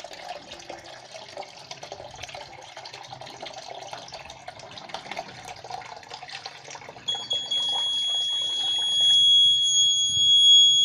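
Water running from a tap into a bucket. About seven seconds in, a homemade water-level alarm's indicator buzzer starts a steady high-pitched tone, which shows the water has reached the aluminium-foil sensor and the bucket is full. The water sound stops about two seconds later.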